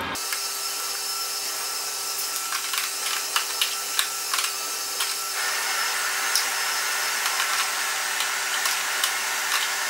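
Flexible aluminium foil duct crinkling and a metal hose clamp clicking as they are worked by hand onto an exhaust port, in irregular sharp crackles that bunch up about two and a half to five seconds in. A steady hum runs underneath.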